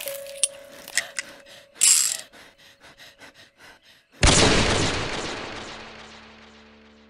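Sound effects closing a song: scattered clicks and a short hiss, then a run of quick mechanical ticks at about six a second. About four seconds in, a loud crash rings out and fades slowly over a low held chord.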